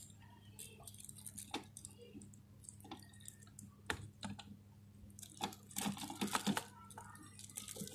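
Faint scattered light plastic clicks and taps from hand work inside an inkjet printer, closing off the yellow ink line of a continuous ink supply system, with a quick run of clicks about five and a half to six and a half seconds in. A low steady hum runs underneath.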